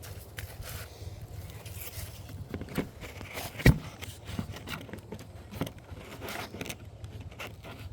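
Equipment being handled: irregular clicks, scrapes and rustles, with one sharp, much louder click or knock about three and a half seconds in.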